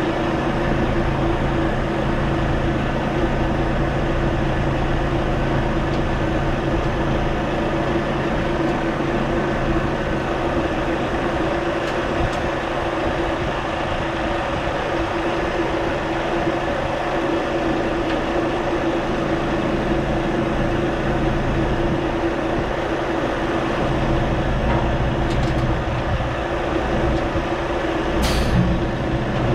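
Semi-truck tractor's diesel engine idling steadily, with a brief hiss near the end.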